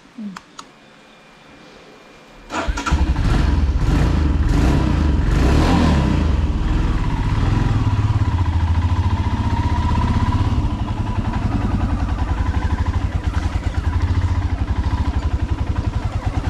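Royal Enfield Himalayan single-cylinder motorcycle engine starting about two and a half seconds in, revved briefly a few times, then running at idle with an even low thumping beat.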